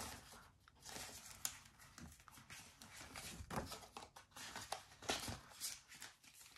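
Faint rustling and crinkling of clear plastic binder pockets and polymer banknotes being handled and flipped through, in short scattered bursts.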